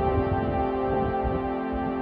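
Ambient background music of long held tones over a soft low pulse.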